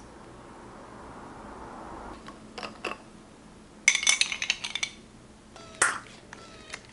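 A metal spoon clinking against ice cubes in a small drinking glass: a quick cluster of bright, ringing clinks about four seconds in, with a few lighter clicks just before. Near six seconds comes a single sharp glassy knock.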